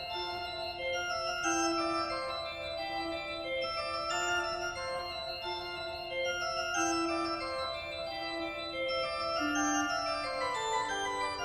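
Organ music: slow, sustained chords whose notes move step by step over a low moving line.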